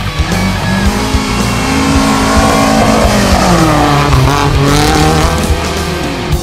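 Rally car engine revving hard on a gravel stage as the car approaches and passes close by: the engine note climbs, holds, then drops in pitch about halfway through as the car goes past and away.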